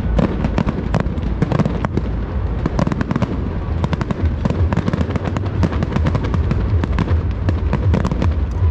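Aerial fireworks going off in rapid succession: many sharp bangs and pops, one on top of another, over a continuous low rumble.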